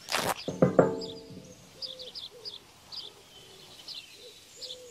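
Small birds chirping over and over, a quick high chirp every half second or so. At the very start there is a brief rush of noise, followed just under a second in by two short, loud barks from a dog.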